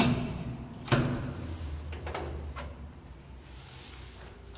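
Doors of an old 1960s ZUD counterweight passenger lift clunking: two heavy metallic knocks about a second apart, then a couple of lighter clicks.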